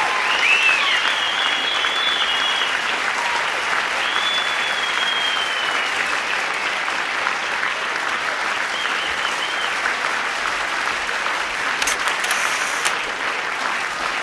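Audience applauding steadily, with a few high whistles from the crowd in the first several seconds.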